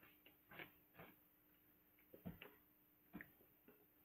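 Faint, irregular clicks and crunches of someone chewing candy in the mouth, a second or so apart, over a faint steady hum.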